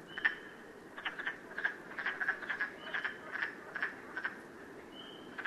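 Frogs calling: a run of short, clicking calls at about two or three a second, over a faint steady background hiss, with three brief higher whistles mixed in.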